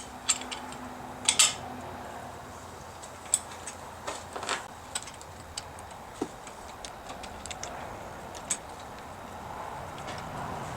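Irregular sharp metallic clicks and clinks of hand tools and bolts being handled while fitting a handguard's mounting bolts on a motorcycle.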